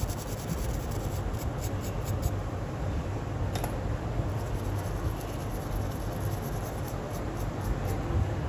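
A small brush scrubbing a phone's UFS memory chip clean in a reballing holder: runs of light scratching strokes, with one sharp click about three and a half seconds in, over a steady low hum.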